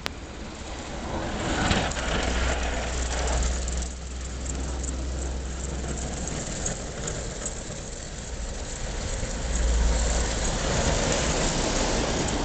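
An engine running with a steady low drone under a rushing noise, growing louder over the first two seconds.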